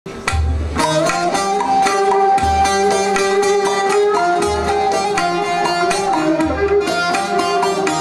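Instrumental opening of a Turkish folk song: bağlamas (long-necked saz lutes) strummed in quick strokes under a held melody line, with a deep low beat about every two seconds.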